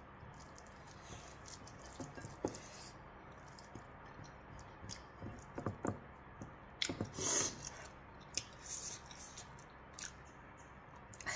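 Faint wet squishing and soft clicks of fingers mixing and scooping rice and curry in a ceramic bowl, eating by hand, with a brief louder rustle about seven seconds in.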